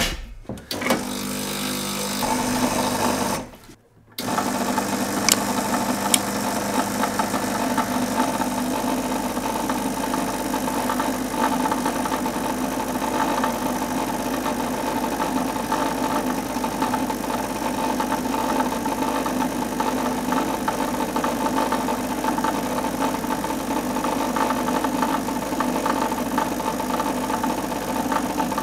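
Lelit Grace espresso machine's vibratory pump humming steadily as it pulls a shot of espresso, with a brief break about four seconds in.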